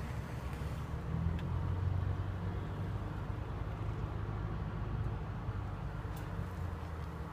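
Steady low rumble of a heavy vehicle engine, with a couple of faint light clicks.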